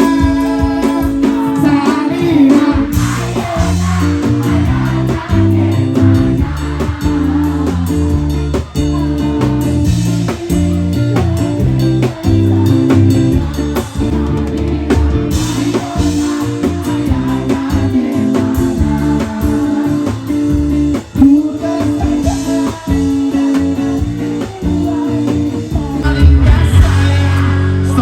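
Music with a singing voice, guitar, bass and drums.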